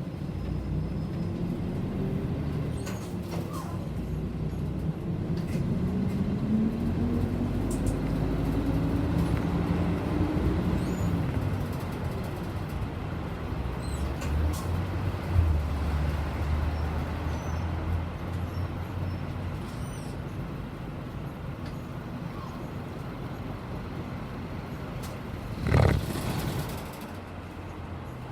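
City bus engine and road noise heard from inside the cabin while under way, the engine note rising as it picks up speed and then easing off. Near the end there is a short, loud hiss of air, typical of the bus's air brakes.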